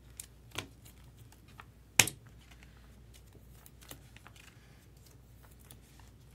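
Scattered light clicks and taps, with one sharp, louder click about two seconds in.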